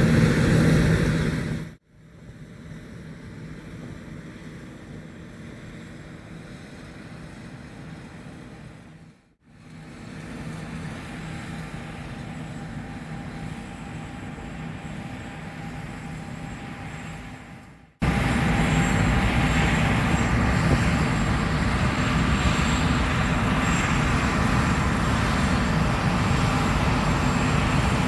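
John Deere S780 combine harvester running steadily, in three edited pieces with abrupt cuts about two and nine seconds in. The middle part is much quieter. From about eighteen seconds on it is loud again, with a thin high whine over the engine.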